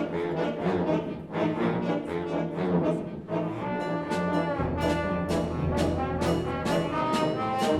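Concert band playing a piece in a steady rhythm of short accented chords, brass to the fore; a held low bass note comes in a little past halfway.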